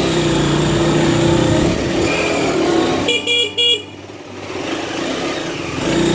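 Race GSR 125 motorcycle engine running steadily at low speed in a narrow lane. About three seconds in, an electric horn gives a quick run of short beeps.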